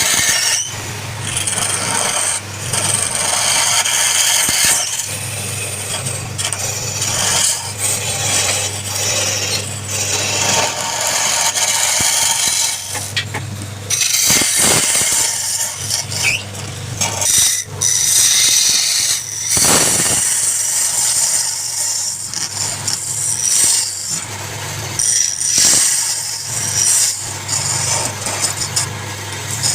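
Wood lathe running with a steady motor hum while a turning tool cuts the spinning wood, a scraping hiss that comes and goes in uneven passes, with a few sharp knocks.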